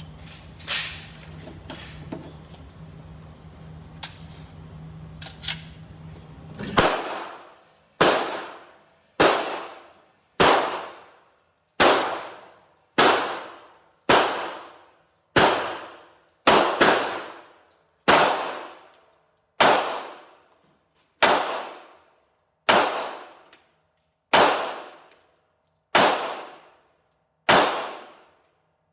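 Glock 45 pistol being fired in steady single shots, about one every second and a quarter, some eighteen in all, each shot ringing out as it dies away. Before the string starts, a steady hum with a few scattered sharp cracks.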